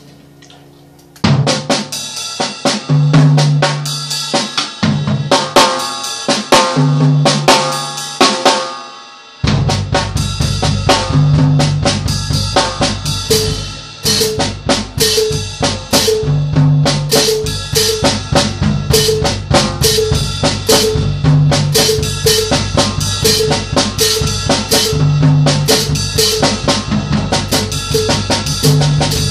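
Drum kit played with sticks, snare and bass drum hits in a practice pattern, starting about a second in. From about nine seconds in the rhythm becomes a steady, even groove.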